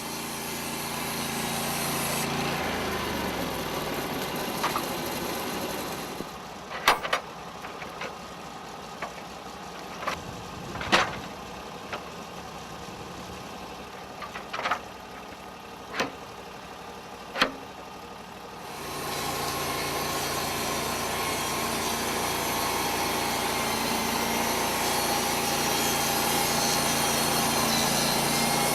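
Portable band sawmill's engine running, then slowing down about 2–3 s in; a quieter stretch follows with about ten sharp knocks and clanks. About 19 s in the engine comes up again and runs steadily with the band saw cutting through the log.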